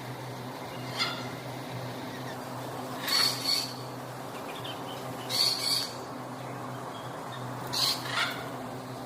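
Swainson's lorikeet (rainbow lorikeet) giving short, harsh screeching calls: a faint one about a second in, then three louder ones, each a quick double screech, spaced two to three seconds apart.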